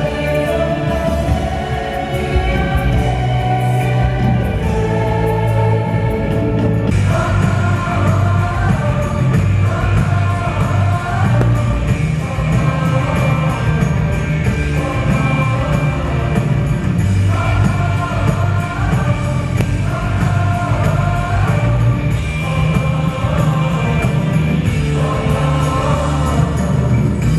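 Music with singing from a circus stage show.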